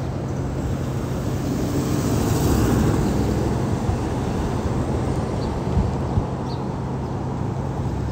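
Steady street traffic noise with a low rumble, swelling a little about two to three seconds in.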